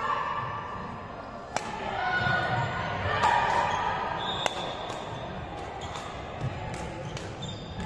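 Indoor court game: a ball bouncing on a hard floor in a large, echoing hall, with sharp irregular impacts and players calling out.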